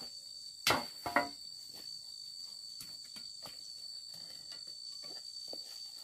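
Steady high-pitched drone of insects chirring, with two sharp knocks about a second in, half a second apart, and fainter scattered taps.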